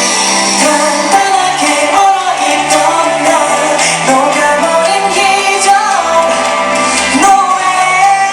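K-pop song with a boy group singing over a loud backing track with bass and synths, heard in a large hall.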